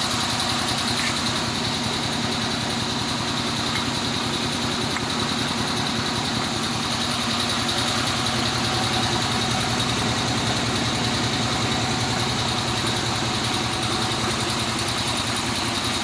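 Steady, constant hum of a running engine or machine, unchanged throughout, with a couple of faint ticks.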